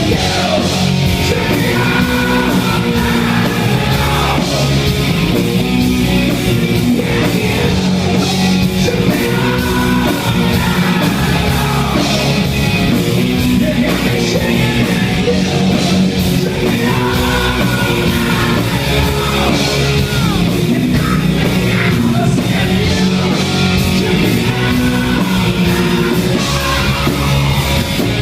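Loud heavy rock band playing, with distorted guitars, drums and shouted, sung vocals.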